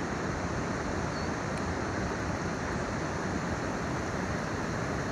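Creek water rushing steadily, an even, unbroken noise.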